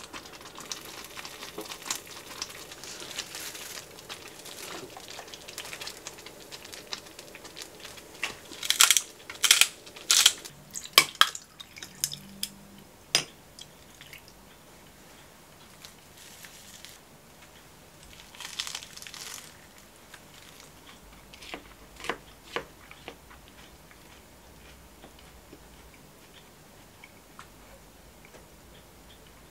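Tableware being handled on a table: a quick run of loud clinks and knocks about nine to eleven seconds in, then a few scattered clicks, with a soft hiss early on and again briefly near the middle.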